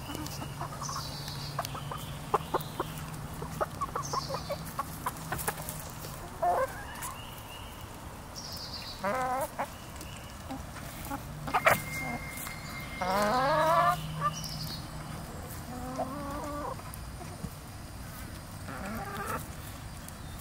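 Backyard hens clucking as they feed on a cantaloupe half, with a run of quick pecking taps in the first few seconds and several longer warbling calls around the middle.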